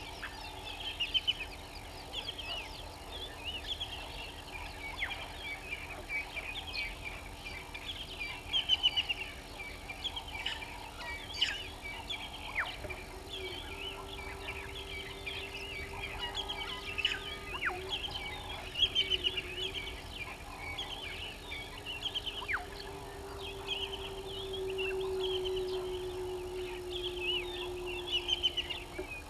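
Helmeted guineafowl calling in a chorus of harsh, rapidly repeated cackles, with other birds chirping. Louder rattling bursts come about nine, nineteen and twenty-eight seconds in. A low steady drone starts about halfway through and grows louder near the end.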